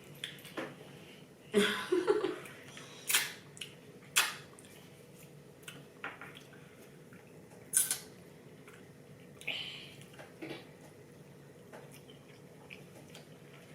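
Eating sounds from sushi being chewed: scattered short clicks and wet mouth smacks at irregular intervals, the sharpest about eight seconds in.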